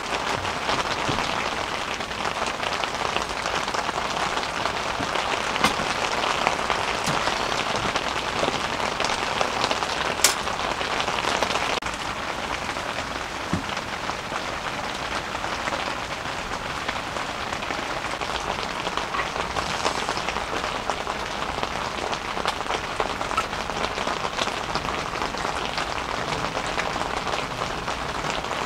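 Heavy rain drumming steadily on the fabric of an Idoogen Stardome tent, heard from inside. A single sharp click comes about ten seconds in.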